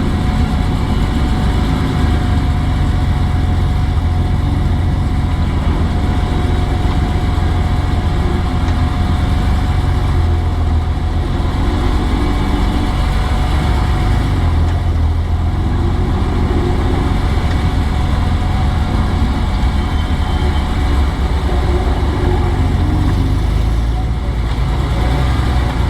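BMW M3 E46's S54 straight-six heard from onboard while lapping, with a deep, loud drone and the engine note rising and falling as the revs change, over road and wind noise.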